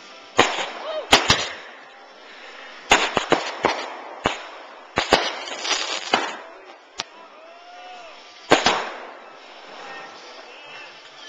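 Aerial fireworks bursting overhead: about a dozen sharp bangs at uneven intervals, some coming in quick clusters and some followed by a crackling, fizzing tail.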